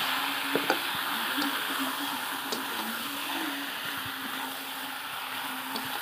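Raw marinated chicken sizzling in hot oil and masala in a metal wok while a metal spatula stirs it, with a few light clicks of the spatula against the pan near the start. A steady low hum runs underneath.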